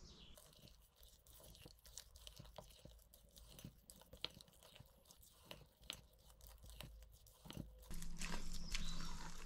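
Spatula folding beaten egg into a thick, wet fruit cake batter in a stainless steel bowl: soft, irregular squelching and scraping that gets louder about eight seconds in.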